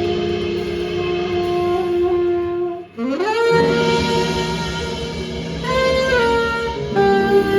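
Jazz saxophone holding a long note over piano, bass and drums, breaking off about three seconds in, then sliding up into another long held note with a few later changes of pitch.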